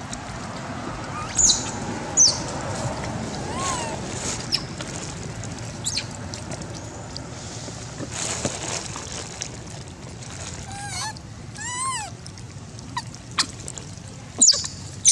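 Long-tailed macaques calling: scattered short, high-pitched squeaks and chirps, then a few short rising-and-falling coos past the middle, and a loud shrill squeal near the end.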